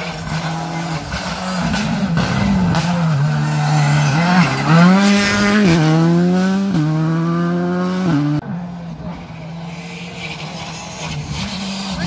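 Rally car engine accelerating hard past close by, its pitch climbing and dropping back at quick gear changes. About eight seconds in it cuts off abruptly to a fainter, more distant rally car engine.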